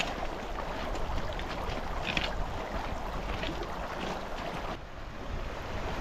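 Wind buffeting the microphone over the rush of a shallow mountain stream running over stones, with a few faint footsteps on gravel. About five seconds in it shifts to a steadier, brighter rush of water.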